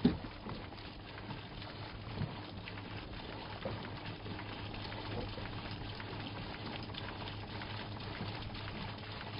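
Water pouring steadily from the discharge hose of a hand-cranked DBest self-priming transfer pump as it is cranked, over a steady low hum. A sharp knock right at the start, and a few lighter knocks after it.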